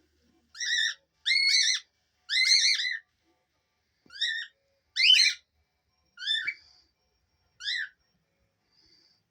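A young dove making a run of about seven short, high squeaky calls, each rising and falling in pitch, some coming in twos or threes, with pauses between them.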